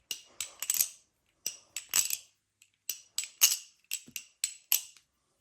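Armed Shark Glidr OG 4 balisong being flipped: a quick, irregular run of sharp metallic clicks and clinks as the handles snap against each other and the blade, some single, some in close pairs.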